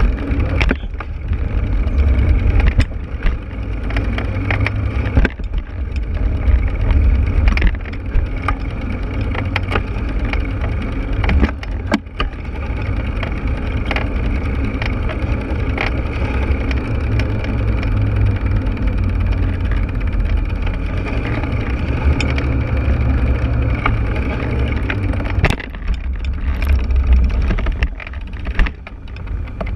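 Wind rushing over a bicycle-mounted camera's microphone while riding, a steady low rumble. Scattered sharp knocks and rattles come through it as the bike and camera mount jolt over bumps in the cycle path.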